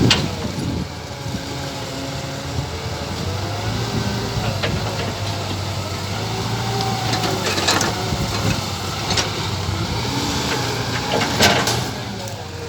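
Radio-controlled scale model Hitachi 120 excavator's motors whining, the pitch rising and falling as it works, with several sharp clacks along the way, the loudest near the end.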